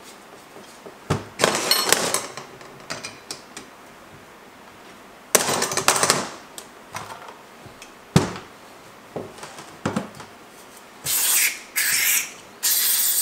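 Metal carburetor parts being handled on a towel-covered workbench during reassembly: scattered knocks and clicks, with several short stretches of scraping and rustling.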